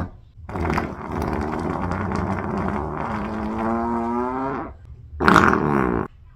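A long, pitched fart lasting about four seconds, its tone rising slowly. After a short pause comes a second, shorter one about five seconds in.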